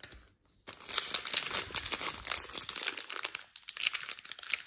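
Foil wrapper of a Panini Select trading-card pack crinkling as it is handled and torn open, starting under a second in.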